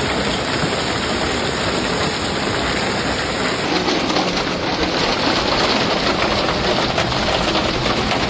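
Steady roar of a severe storm, dense noise of driving rain and wind. A little under four seconds in the sound changes, becoming a denser patter of many small impacts.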